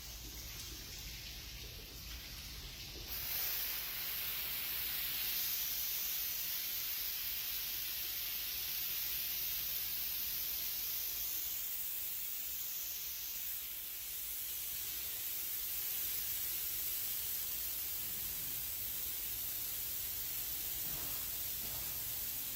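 Water jets of an automatic car wash spraying, a steady hiss that gets louder about three seconds in.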